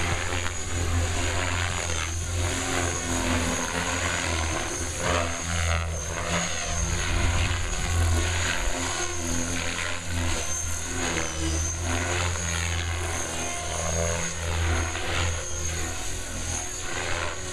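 Compass Atom 500 electric radio-controlled helicopter flying aerobatics, its main rotor chopping and whooshing. The sound swells and falls repeatedly as the helicopter flips and turns.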